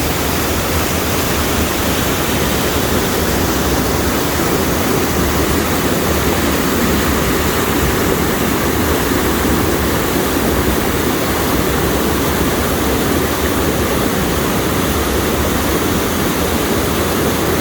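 Mountain stream rushing over rocky rapids: a loud, steady rush of water.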